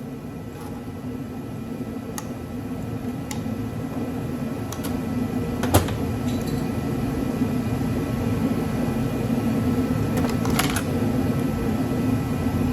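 Steady mechanical hum that slowly grows louder, with a few sharp clicks and taps of small metal scrap parts being handled, the loudest about six seconds in and two more close together near ten seconds.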